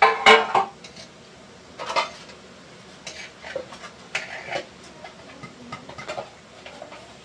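Kitchen clatter: pans and utensils knocked and handled, with a burst of clattering at the start and scattered clicks and knocks after.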